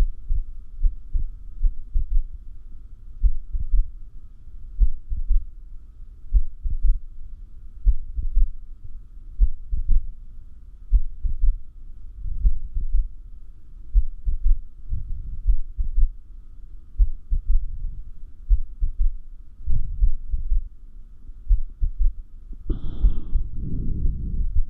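A human heartbeat: low lub-dub thumps at an uneven pace, with some gaps longer than others, during a breath hold. The uploader takes this for clearly more arrhythmia than usual. A faint steady hum runs underneath, and a louder rushing noise comes in near the end.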